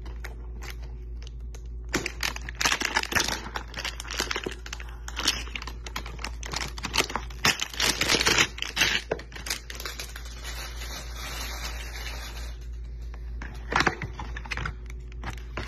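A trading-card hanger box being opened: cardboard scraping and the plastic wrapping around the cards crinkling and tearing in irregular crackly bursts, with a few sharp taps near the end.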